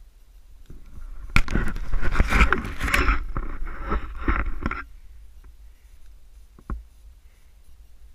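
Close scraping and knocking of gear against an action camera on a pole mount while it is handled and swung around. The dense rustling racket lasts about three and a half seconds and cuts off abruptly, and one sharp knock follows a couple of seconds later.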